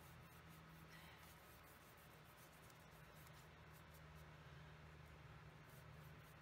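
Near silence: a steady low electrical hum, with faint soft scratching now and then.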